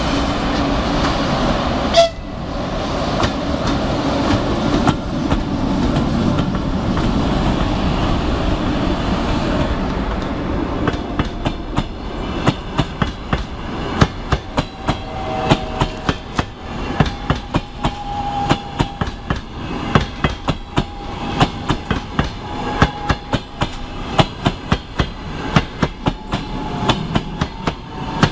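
A ChS200 two-section high-speed DC electric locomotive passes at speed with a passenger train, making a loud, even rush of noise, with one brief sharp sound about two seconds in. From about ten seconds in, the passenger coaches follow with a steady clickety-clack of wheels over rail joints and a faint steady whine over it.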